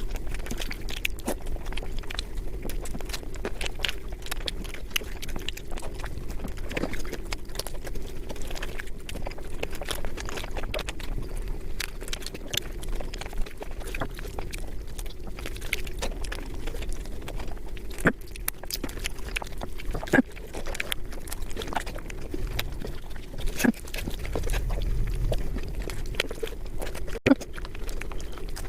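Mukbang eating of panta bhat (watery fermented rice): a dense, irregular run of chewing clicks and mouth smacks over a steady low hum.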